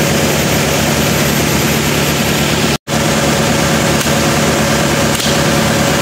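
A vehicle engine idling steadily, with an even low throb. The sound cuts out for a moment about three seconds in.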